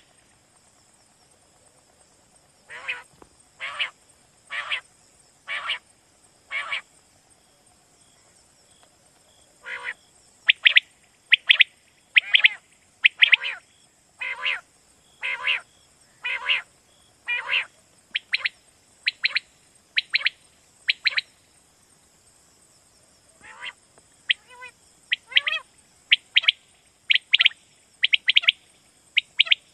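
Common quail calling: short sharp notes repeated about once a second in runs, with pauses of a few seconds between runs, over a steady high hiss.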